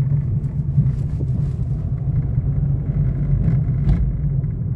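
Steady low rumble of a car's engine and tyres, heard from inside the cabin while the car drives slowly along a street.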